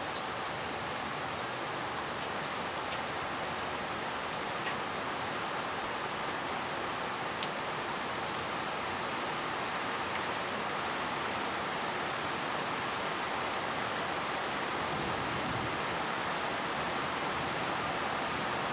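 Steady rain falling during a thunderstorm, a constant hiss with scattered sharper drop hits close by.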